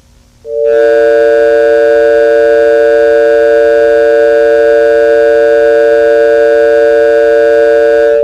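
Electronic emergency alert tone: a loud chord of several steady pitches held for about eight seconds, starting about half a second in and cutting off abruptly.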